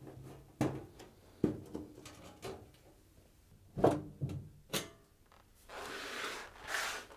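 Screws being taken out of an LG washing machine's back panel and the panel being handled: a string of separate clicks and knocks, then a longer scraping noise about six seconds in as the panel comes away.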